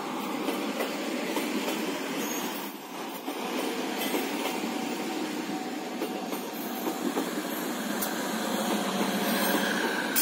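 Prameks train's K3 economy coaches rolling past at close range: a steady rumble of steel wheels on the rails, with a few sharp clacks as wheels cross rail joints.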